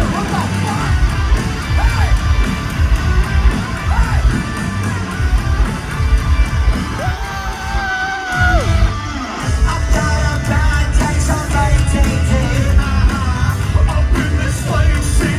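Loud live rock band playing at a concert, with the crowd yelling and singing along. The low end drops out briefly about seven seconds in under a long held note, then comes back in.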